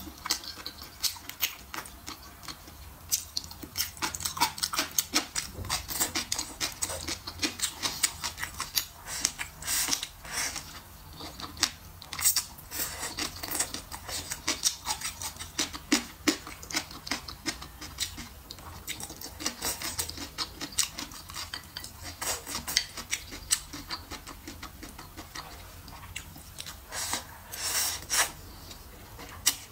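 Close-miked eating: wet chewing and lip smacks while eating braised pork belly, choy sum and bean sprouts, with chopsticks clicking on the food and plate. The sounds come as many irregular short clicks and smacks, with a louder run of sucking and chewing near the end.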